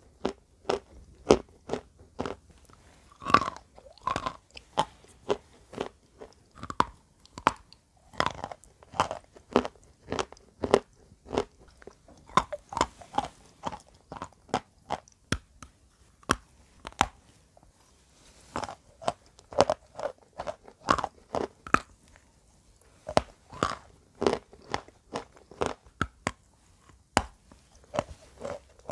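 Close-miked biting and chewing of wet chalk: many sharp, irregular crunches in quick succession, with a brief pause about two thirds of the way through.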